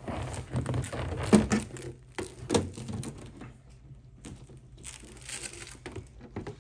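Ribbed flexible exhaust hose being pushed onto the laser's exhaust port and handled: crinkling and rustling of the corrugated hose, with sharp clicks about one and a half and two and a half seconds in, then a softer rustle near the end.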